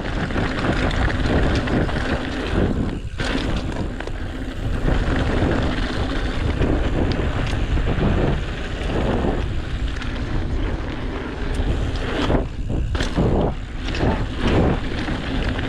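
Wind rushing over the camera microphone and tyres rolling over a dry dirt trail as a Commencal Meta mountain bike descends at speed. The noise drops away briefly once about three seconds in and a few times near the end.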